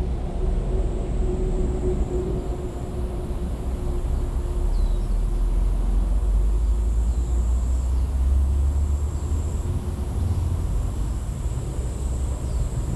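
Wind buffeting the GoPro microphone on a landed FPV drone, a steady low rumble. A faint steady hum fades out a few seconds in, and a few faint short chirps come through.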